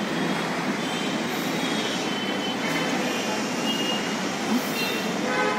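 Steady background noise, an even rumble and hiss, with a few faint high-pitched squeals coming and going over it.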